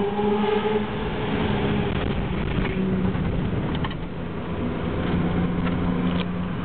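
BMW E30 323i's 2.3-litre straight-six engine running while the car is driven, holding a fairly steady pitch with small rises and falls and easing off slightly about four seconds in.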